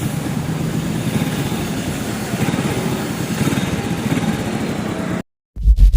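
Motorcycle engine running steadily; it cuts off abruptly about five seconds in, and loud music starts a moment later.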